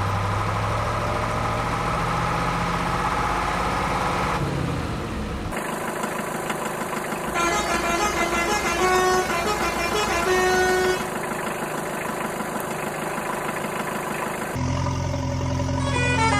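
Edited cartoon vehicle sound effects: a steady engine hum, then after a sudden cut, horn toots stepping through changing pitches like a short tune, with further abrupt cuts between segments.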